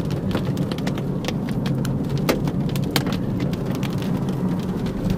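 Rain and hail striking the windshield and roof of a moving car, heard from inside the cabin: many sharp irregular taps over the steady low hum of the engine and road.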